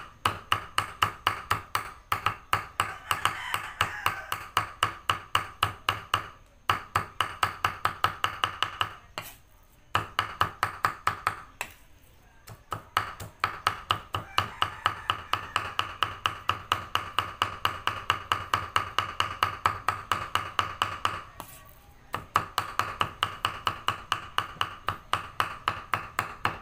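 Meat cleaver mincing on a round wooden chopping block: fast, even chops about four to five a second, each with a metallic ring, in runs of several seconds broken by a few short pauses.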